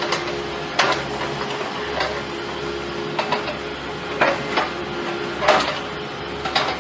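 A machine running with a steady hum, broken by irregular sharp knocks and clanks, about seven in all.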